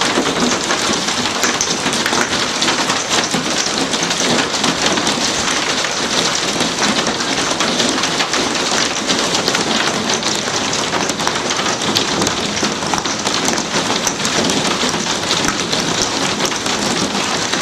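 Hail mixed with heavy rain pelting the glass panes of a glassed-in porch: a loud, steady, dense patter of countless small hits, with sharp pops standing out.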